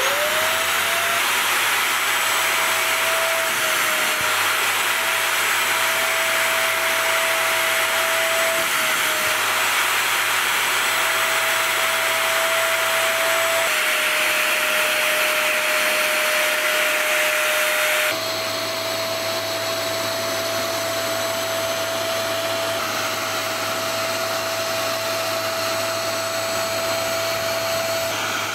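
Zedar C600 portable carpet and upholstery spot cleaner running, its suction motor giving a steady high whine over rushing air. The whine climbs in pitch in the first second as the motor spins up. The hiss is brighter for a few seconds in the middle, and about 18 s in the sound changes abruptly and drops slightly in level.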